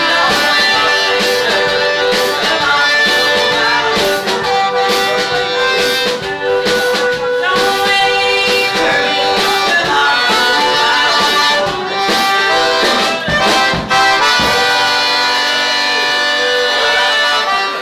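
Live Cajun band playing, the accordion carrying the melody in held chords over a steady drum beat.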